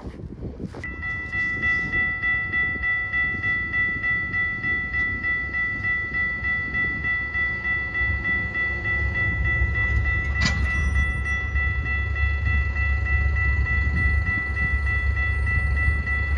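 Railway crossing-signal bell ringing in a quick, even rhythm. From about halfway through, the low rumble of an approaching train builds under it.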